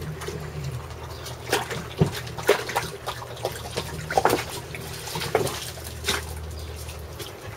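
Shallow water sloshing and dripping as dogs wade in a plastic kiddie pool, with scattered small splashes and knocks over a steady low hum.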